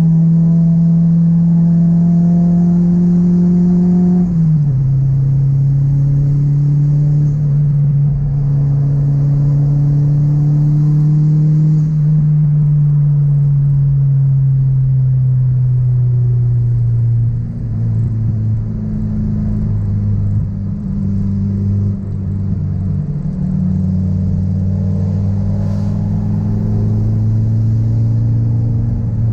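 Car engine droning steadily, heard from inside the cabin while driving. Its pitch drops suddenly about four seconds in at a gear change, then sinks slowly.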